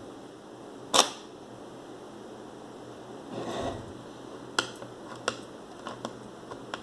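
Zorki 1 rangefinder camera being worked by hand: one sharp shutter click about a second in, then a moment of handling noise and several lighter clicks as the winding knob is turned.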